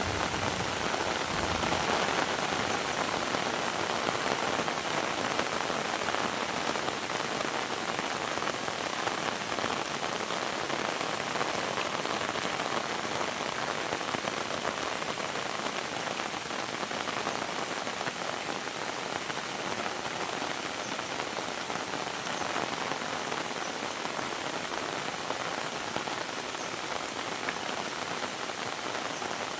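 Heavy rain falling steadily, a dense hiss of drops pattering on surfaces.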